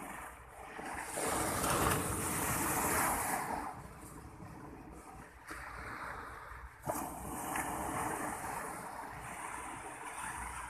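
Sea surf breaking on a sandy shore, swelling louder for a couple of seconds about a second in, with a low rumble of wind on the microphone. One brief knock past the middle.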